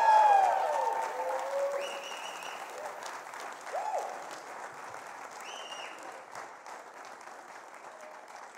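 Audience applauding and cheering at the end of a live song, with a few whoops, the applause dying away steadily.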